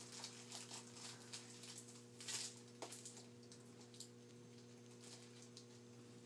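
Faint rustling and small clicks of things being handled, most of them in the first few seconds, over a steady low electrical hum.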